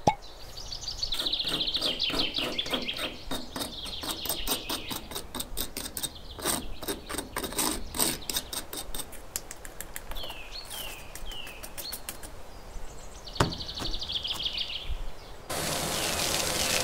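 Small metal trowel scraping and tapping sand against miniature bricks in a run of quick clicks, with birds chirping and trilling in the background. Near the end a small vacuum motor starts and runs steadily with a constant tone.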